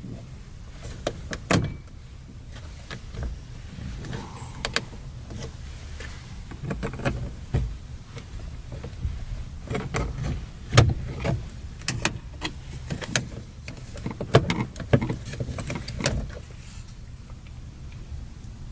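Scattered plastic clicks and knocks of door trim being pried up with a screwdriver around a 2007 Chevy Silverado's window switch plate, and of the switch's wiring connector being unclipped. Some clicks are sharper than others, with a low steady hum underneath.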